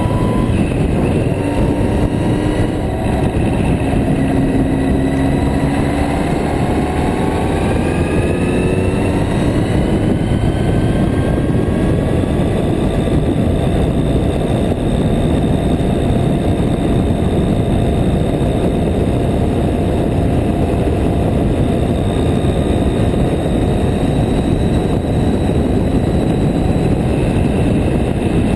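Yamaha Diversion motorcycle's air-cooled inline-four engine under way: its note rises over the first ten seconds or so as it accelerates, then holds steady at cruising speed. Wind and road noise run underneath.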